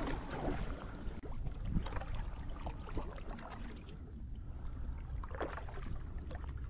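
Kayak paddle strokes dipping and splashing in the water, with louder splashes about two seconds in and again past five seconds, over a steady low rumble.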